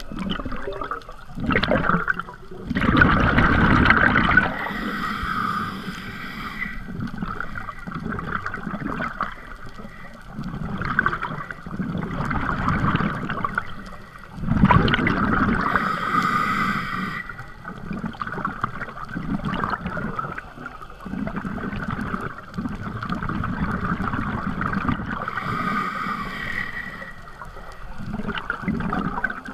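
Scuba diving underwater: breathing through a scuba regulator, heard through a waterproof camera housing. A steady low water rumble is broken by three breaths roughly every eleven seconds, each a loud rush of bubbles and a hiss from the regulator.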